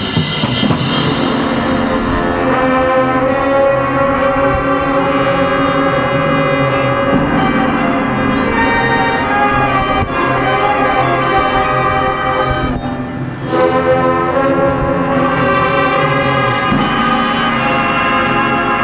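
Marching band playing a brass-led piece, with a short drop-off about thirteen seconds in and two cymbal crashes after it.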